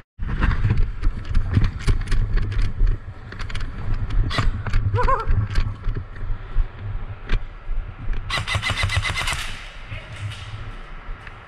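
Clattering movement and scattered clicks and knocks of airsoft play, then near the end a rapid burst of fast, evenly spaced clicks lasting about a second: an airsoft gun firing full auto.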